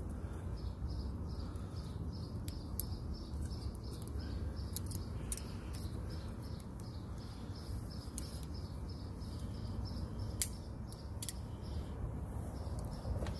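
About five sharp metallic clicks from a folding multitool being handled and its saw blade opened and closed, over faint steady chirping and a low rumble.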